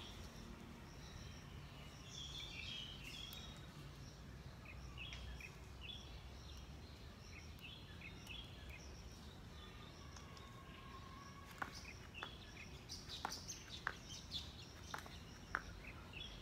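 Small birds chirping faintly and on and off over a steady low outdoor background noise. In the last few seconds, a run of sharp, irregular clicks or taps joins in.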